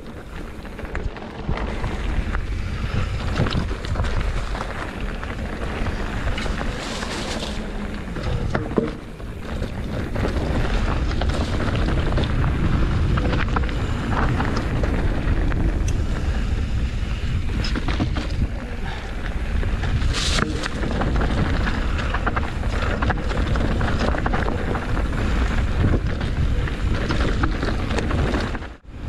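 Wind buffeting the microphone of an on-board camera during a trail ride, over a steady low rumble with many short rattles and knocks from the bike on rough ground.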